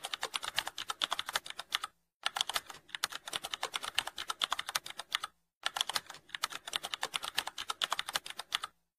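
Computer-keyboard typing sound effect: rapid clicking keystrokes in runs of about three seconds, broken by short pauses about two seconds in, about five and a half seconds in, and near the end.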